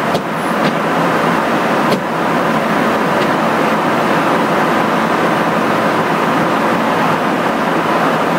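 Steady rushing of airflow and engine noise inside a KC-135 tanker's boom operator compartment in flight, with a few light clicks, the sharpest about two seconds in.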